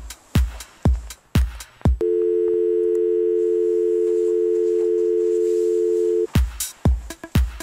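Electronic dance beat of low drum hits about twice a second, cut off about two seconds in by a steady two-tone telephone dial tone that holds for about four seconds before the beat comes back.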